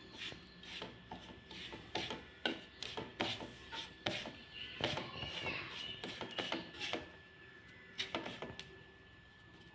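Fingers rubbing and pressing a dry, crumbly powdered laddu mixture in a pan, working in melted ghee, with irregular light scrapes and taps against the pan. The sounds thin out near the end.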